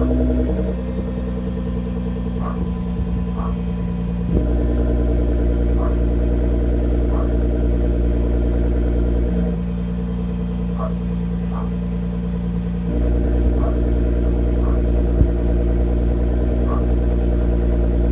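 2017 Nissan GT-R's twin-turbo V6 idling steadily through an Armytrix valve-controlled exhaust, the valves switching between closed and open. The note drops quieter about half a second in, gets louder and fuller around four seconds, drops quieter again near ten seconds, and opens up louder again around thirteen seconds. One brief knock comes about fifteen seconds in.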